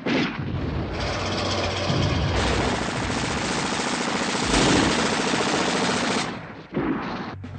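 Gunfire: a long stretch of rapid automatic fire, a dense rattle of shots that stops about six seconds in.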